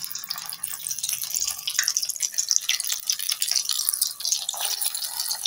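Egg-and-flour-battered potato fries sizzling and crackling in hot oil in a wok as more strips are dropped in one by one; the crackle grows louder over the first couple of seconds.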